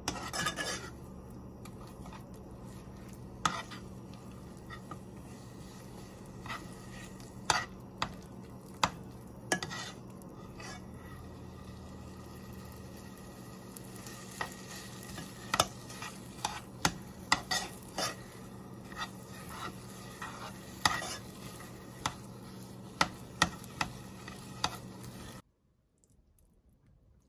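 A metal utensil stirring and scraping a thick, sticky filling in a nonstick pot, with frequent sharp clicks of metal against the pan and a soft sizzle. A steady low hum runs underneath and cuts off suddenly near the end.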